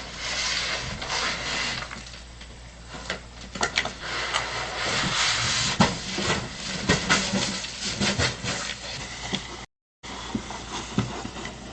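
Rustling and scraping with scattered knocks as a bear handles a package of dog food on a porch, picked up by a doorbell camera's microphone over a steady low hum. The sound cuts out for a moment about ten seconds in.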